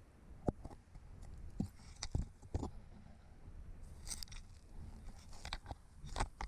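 Inspection camera scraping and knocking against the sooty brick inside a chimney flue: irregular clicks and crunchy scrapes, with a cluster of crackles about four seconds in, over a low steady rumble.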